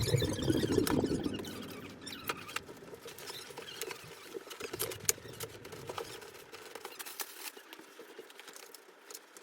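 Scattered light clicks and taps over a faint rustle, with a low rumble that fades out in the first two seconds.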